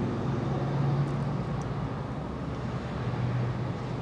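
Car cabin noise while driving: a steady hum of engine and road noise with a low drone, heard from inside the car.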